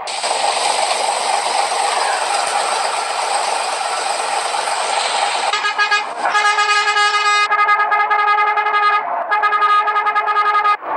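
A loud steady rush of vehicle noise, then, about halfway in, a bus's multi-tone musical air horn sounds, playing several long chord-like blasts with short breaks between them.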